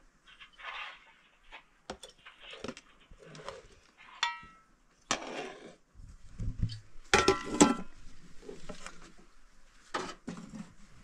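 A metal ladle and metal cooking pot knocking and clinking as rice is served out. There is a ringing clink about four seconds in and a louder cluster of clanks from about seven to eight seconds.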